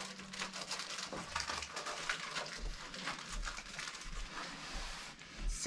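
Rustling and crinkling of a small retail package being handled and opened, with a few soft knocks from items shifting in a cardboard box.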